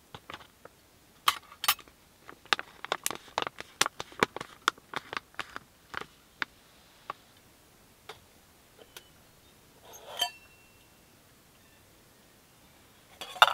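Crinkling and crackling of a foil-lined food pouch being handled and torn open, a dense run of sharp crackles over the first several seconds that thins out. Near the end comes a single sudden, loud knock.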